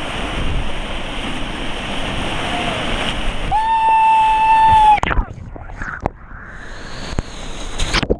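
Whitewater rapid rushing and churning right at a water-level camera, with a held high-pitched note for about a second and a half around the middle. About five seconds in the sound drops away, muffled with scattered clicks and gurgles, as the camera goes under the water.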